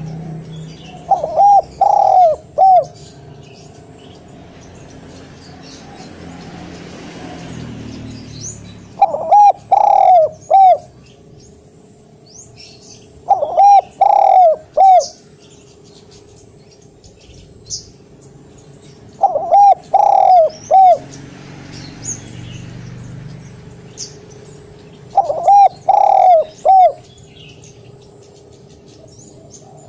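Spotted dove cooing its loud territorial song five times, each phrase a quick run of four or five coos, repeated every five or six seconds. Faint high chirps from small birds sound between the phrases.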